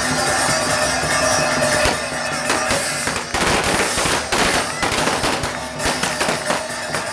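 Party poppers going off in a crowd: a scatter of sharp pops that grows dense from about two and a half seconds in, over music with drums.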